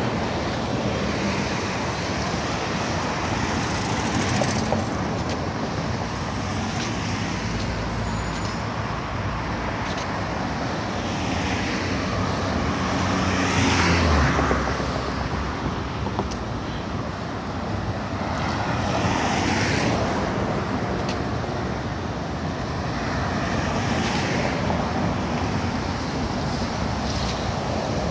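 Steady city road traffic, with vehicles swelling past one after another, the loudest about fourteen seconds in.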